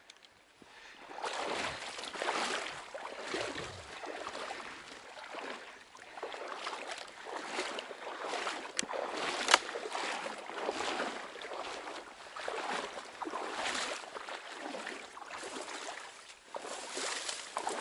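Dry marsh reeds rustling and swishing as someone moves through them, in uneven swells roughly a second apart, with a sharp click about nine and a half seconds in.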